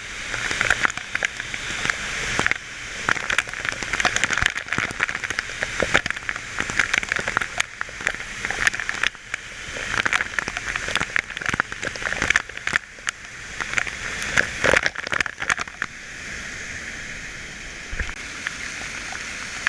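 Water spattering and splashing close by, a dense hiss full of sharp drops that surges and dips, then settles into a steadier rush for the last few seconds.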